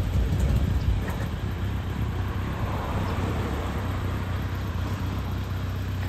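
Motorcycle engines idling steadily.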